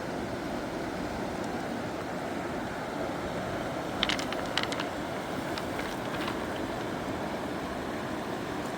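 Steady rushing of a fast mountain river, with a quick cluster of sharp clicks or knocks about halfway through and a few fainter ones just after.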